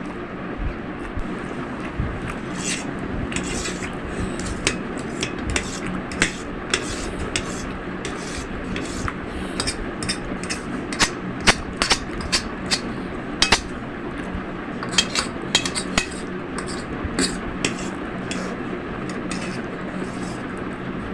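Utensil repeatedly clinking and scraping against a dish while noodles are eaten, in irregular sharp taps, densest in the middle, over a steady background hum.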